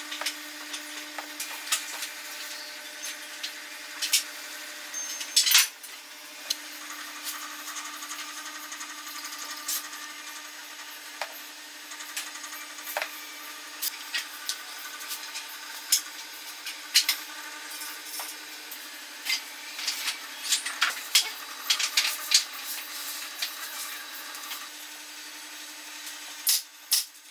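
Small power tool running steadily on wood, with many scattered clicks and knocks as the piece is worked.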